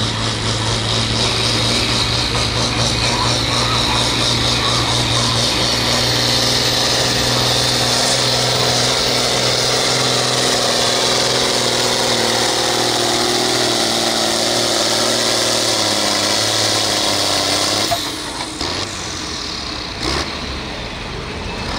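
John Deere 4020 hot stock tractor's engine running hard while pulling the sled, its pitch slowly sagging as it lugs down under the load. About eighteen seconds in it suddenly drops off as the pull ends.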